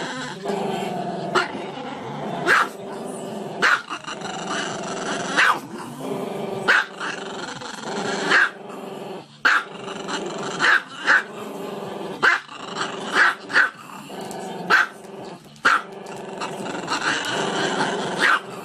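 A small dog howling with its muzzle raised: long, drawn-out, wavering howls broken by short sharp yips roughly once a second.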